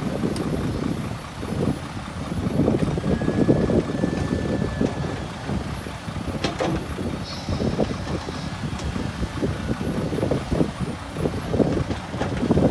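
Heavy diesel machinery running with a steady low rumble, crossed by irregular knocks and clatter and one sharper crack about two-thirds of the way through.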